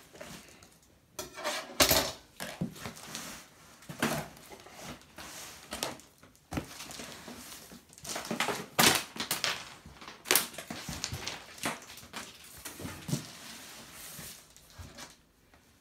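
Cardboard shipping box being opened by hand: plastic strapping pulled and cut, and the cardboard scraped, rustled and handled in irregular bursts, with a few louder sharp noises among them.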